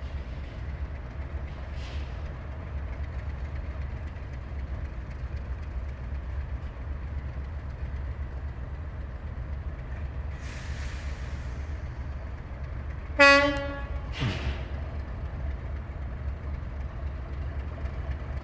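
Class 37 diesel-electric locomotive's English Electric V12 engine running with a steady low rumble. About 13 seconds in it gives one short, loud horn blast, and a brief hiss comes a few seconds before that.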